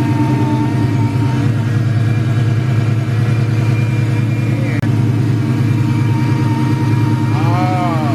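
Whipple-supercharged V8 of a built Cobra, running on E85, idling loud and steady with a rough, lumpy note.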